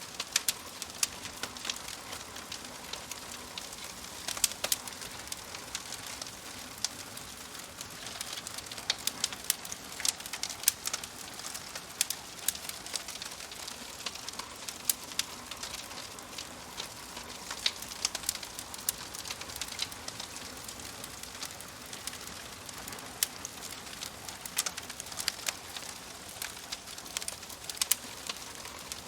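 Wood fire crackling in a fireplace: a steady soft hiss with frequent irregular sharp pops and snaps.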